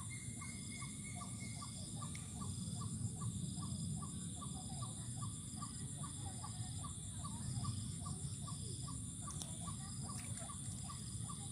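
Outdoor rural ambience: a steady high-pitched insect buzz, with a short animal call repeating about four times a second, over a low background rumble.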